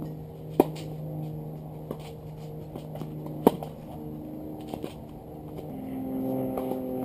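Tennis ball struck by a racket: a sharp pop of the serve about half a second in, a faint distant return, then a louder groundstroke near the middle. Under the hits runs a steady hum of held tones that changes pitch about two-thirds of the way through.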